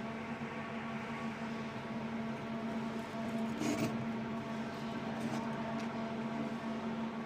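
Small melting furnace for gold, copper and silver running with a steady hum and hiss, with a faint knock about three and a half seconds in.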